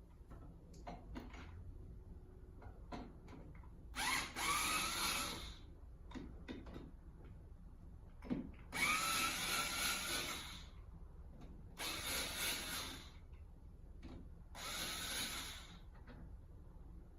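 Electric drill-driver running in four short bursts, each spinning up in pitch as the trigger is pulled, with small clicks and knocks of handling between them.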